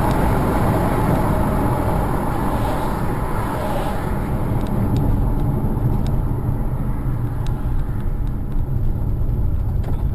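Steady road and engine noise of a car driving, as picked up by a dashcam, with a few faint clicks in the second half.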